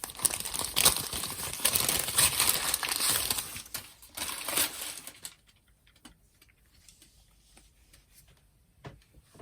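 Packaging wrapping crinkling and rustling as an item is unwrapped, dense for about five seconds and then stopping, followed by a few faint taps.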